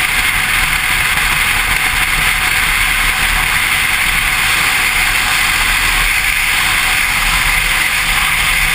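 Touring motorcycle cruising at highway speed: steady wind rush over the bike-mounted camera, with engine and road noise underneath.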